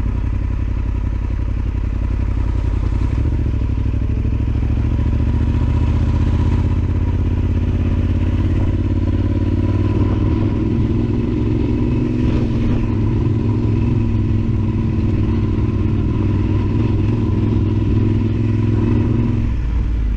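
Yamaha XT1200Z Super Ténéré's parallel-twin engine running steadily as the motorcycle is ridden over a dirt trail, a little stronger through the middle stretch and easing off near the end.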